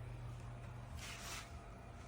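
HOGARLABS 34-pint dehumidifier running with a steady low hum, with a brief rustle about a second in.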